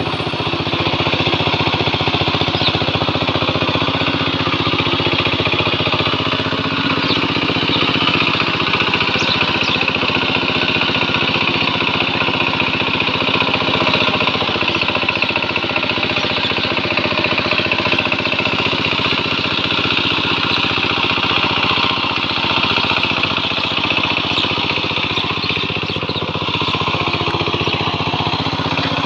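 Small engine running steadily at a constant speed, with a rapid even pulsing beat.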